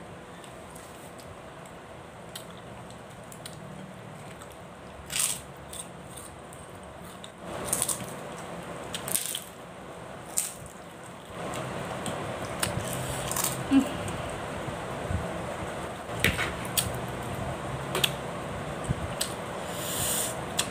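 Close-miked mouth sounds of a person eating fish head curry with her hands: chewing, lip smacks and sucking meat off the bones, heard as scattered short wet clicks and smacks. A low steady background hum gets louder about halfway through.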